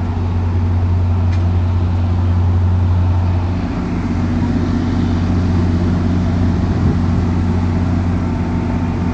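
Diesel locomotive engine running steadily: the EMD 16-cylinder prime mover of a GP40MC, a deep drone with several steady notes. About four seconds in the lowest note drops away and a higher note comes up.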